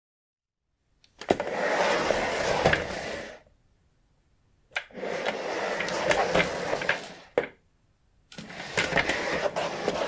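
Office chair on castor wheels rolled across the floor three times, each run a steady rolling rumble of about two seconds that starts with a sharp click or knock.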